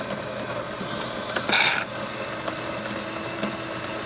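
DeLonghi Magnifica S super-automatic espresso machine frothing milk for a cappuccino: a steady mechanical whir with a thin high whine. A short loud hiss comes about one and a half seconds in.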